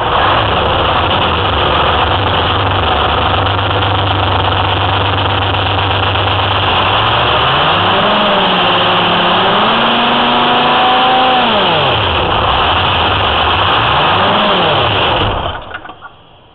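Detroit Diesel 6V53 two-stroke V6 diesel with a freshly rebuilt Roots blower, just started and idling steadily. After about seven seconds it is revved up and down in two swells, blipped once more, and shut off near the end. The short revs are a check of the new blower's oil seals.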